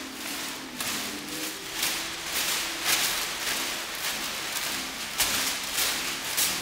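Many sheets of newspaper being shaken and crumpled by a group of people at once: a dense, crackling rustle that swells and fades in repeated waves.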